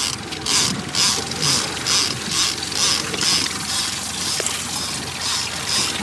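Rhythmic mechanical ratcheting, about two strokes a second.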